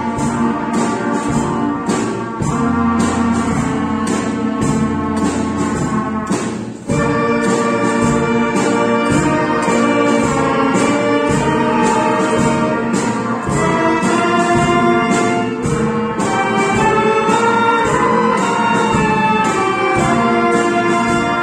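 A school ensemble of trumpets and classical guitars plays a tune together with a steady beat. The playing dips briefly about seven seconds in, then carries on.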